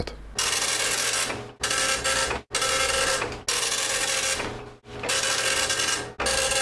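FDM 3D printer with a direct-drive extruder printing a temperature-tower test piece: the motors whir and whine as the print head moves. The sound comes in stretches of about a second each that cut in and out abruptly.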